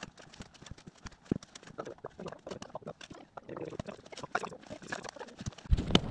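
Shovels digging and scraping in sandy soil: irregular scrapes, chinks and thuds of blades striking earth. Near the end a loud knock, then wind rumbling on the microphone.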